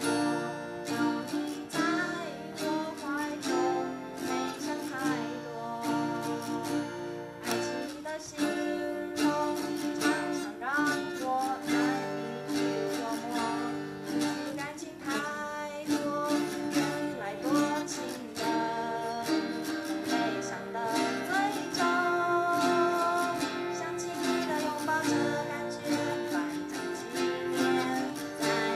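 Two acoustic guitars strumming chords, accompanying a girl singing a song into a microphone.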